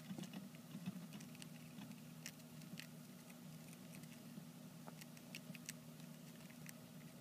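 Campbell's dwarf hamsters nibbling a millet spray: faint, irregular little clicks and crackles of seeds being gnawed and husked, over a steady low hum.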